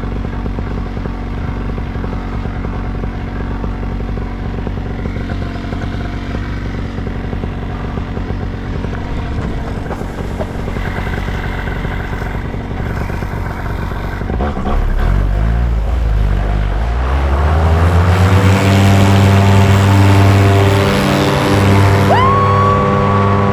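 Small aircraft engine running at low power, then throttled up about 14 seconds in, its pitch rising over a few seconds to a steady high-power run. A thin steady high tone joins near the end.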